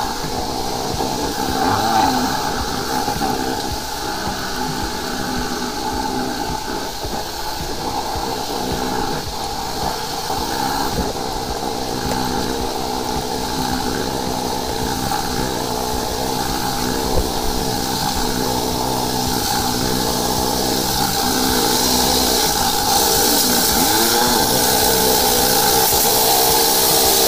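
High-pressure sewer jetter running steadily as its hose is fed down a manhole: the pump engine's steady hum with a water-jet hiss, the hiss growing louder near the end.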